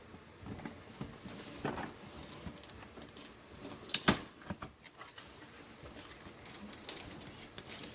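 A cardboard toy box being opened by hand: scattered taps, scrapes and rustles of cardboard and packaging, with one sharper knock about four seconds in.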